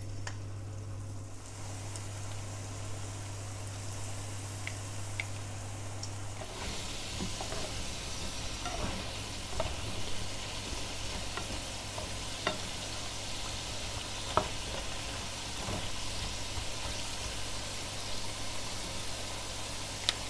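Egg-and-flour-coated potato sticks deep-frying in hot pork lard in a frying pan. A light sizzle over a low hum swells into a steady, fuller sizzle about six seconds in as more potatoes go in, with scattered pops and clicks.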